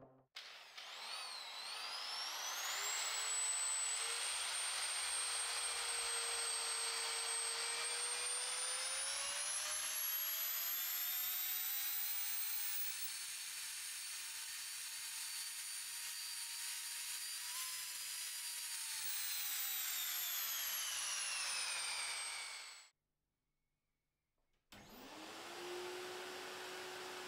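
Handheld rotary power tool with a sanding disc running against a metal part: a high motor whine whose pitch slowly rises, then falls. After a short silence near the end, a bench polishing motor starts up and settles into a steady hum.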